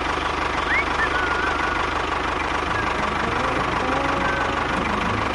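Small engine of a miniature home-built construction vehicle idling steadily with a fast, even knock. A few short chirps, like birds, sound over it.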